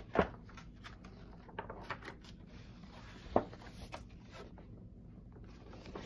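Handling noise in a small room: two sharp knocks, one just after the start and one about three and a half seconds in, among small clicks and soft rustles.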